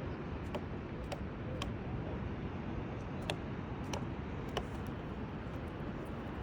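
Steady low rumble of background noise with about six sharp, irregular clicks scattered through it, the loudest a little past the middle.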